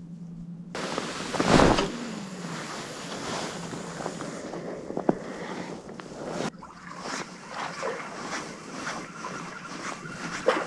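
Outdoor harbour ambience: wind buffeting the microphone and seawater lapping, with a loud rumbling gust soon after the start and a single sharp click around the middle.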